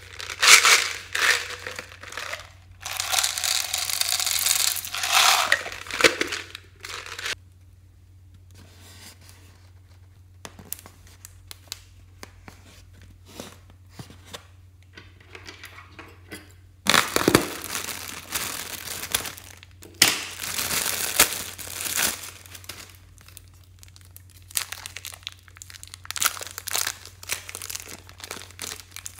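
Plastic packaging crinkling and tearing as it is handled and opened, in several bursts with a quiet stretch of about ten seconds in the middle.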